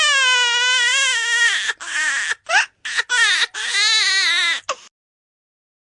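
Baby crying: one long wavering wail, then a string of short broken cries that stops abruptly near the end.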